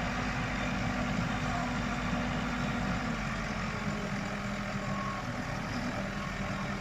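Vehicle engine running steadily, its pitch dropping slightly about three seconds in.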